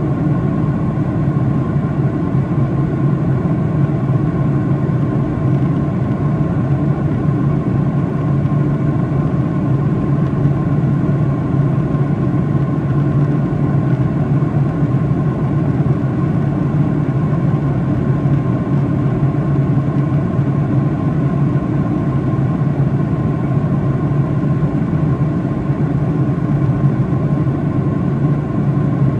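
Steady cabin noise of a Boeing 737-800 in flight, heard from a window seat over the wing. The CFM56-7B turbofans and the airflow make an even, low drone with a faint steady whine above it.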